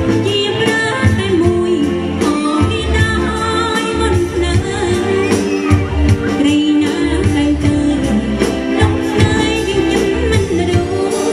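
A woman singing a Cambodian pop song live into a microphone, backed by a band with electric guitar, bass and a steady beat.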